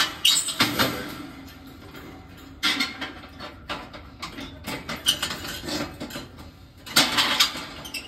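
Wire carry handle of a kerosene space heater being worked back into position on its metal guard grille: metal scraping and clicking against the wire grille in short irregular bursts, the loudest near the start and near the end.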